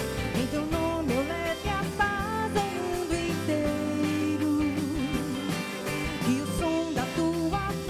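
A woman singing a melody that slides and bends in pitch, backed by a live band of guitars and drums.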